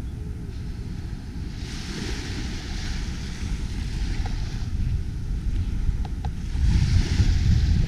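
Wind rumbling on the microphone, growing stronger near the end, over small waves washing on the sand in two soft hisses.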